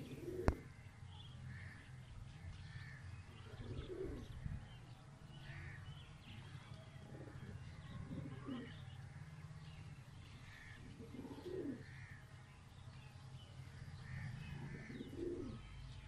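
Domestic pigeons cooing softly, a low call every few seconds, with faint chirping from other birds. A single sharp click sounds about half a second in.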